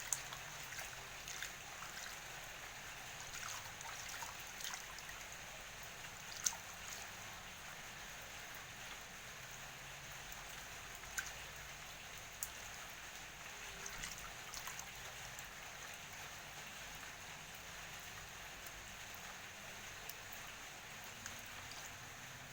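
Water trickling steadily, with scattered sharp drips.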